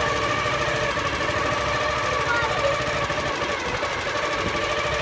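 Boat engine running steadily, with a fast knocking rattle under a steady drone.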